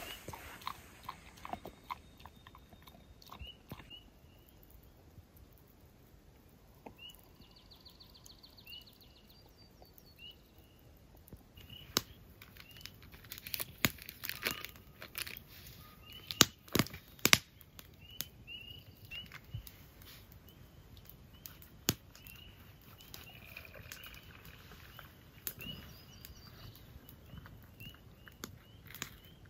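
Spring peepers calling: short, high, rising single peeps repeated about once a second, with scattered sharp knocks and clicks, the loudest of them in the middle stretch.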